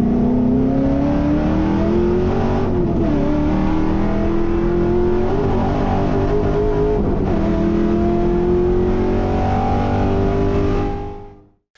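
Holden VX Commodore SS race car's L98 V8 under hard acceleration, its note climbing steadily as it pulls. The pitch drops once about three seconds in, then climbs again slowly.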